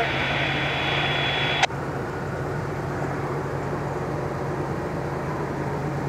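Steady low engine hum over a background hiss. A sharp click about a second and a half in cuts off a faint high tone, and the sound drops a little after it.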